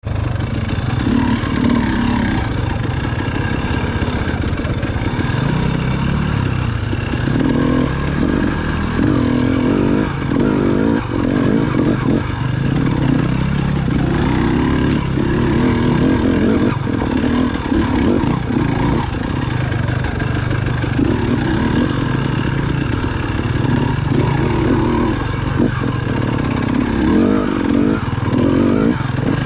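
Dirt bike engine running close to the microphone on a trail ride, its revs rising and falling constantly as the throttle is opened and closed.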